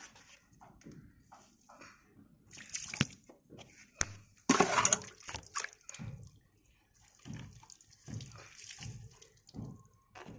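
Water poured from a plastic container onto the soil of a potted snake plant, splashing in uneven gushes, loudest about halfway through, with a few light knocks.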